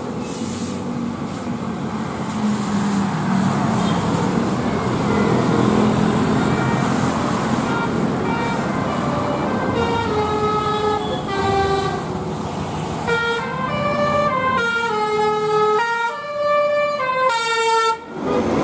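A bus engine and traffic rumble, then from about ten seconds in a telolet 'Basuri' musical bus horn plays a melody of short notes that step up and down, coming quicker near the end.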